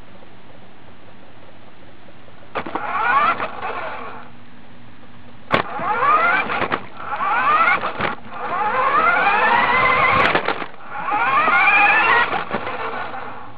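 Electric motor of a radio-controlled toy truck whining in four spurts of driving, starting about two and a half seconds in, its pitch climbing each time the truck speeds up, with a few sharp knocks between spurts. Heard close up from a camera mounted on the truck itself.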